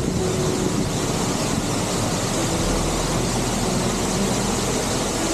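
Large waterfall heard close up: a loud, steady, even roar of falling water.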